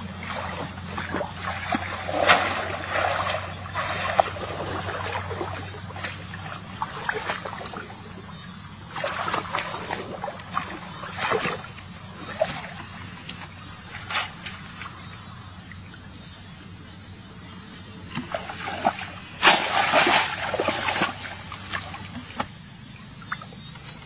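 Splashing and sloshing of shallow muddy water as a wicker basket fish trap is pushed down and worked in it, in irregular bursts with the loudest cluster late on, over a steady low hum.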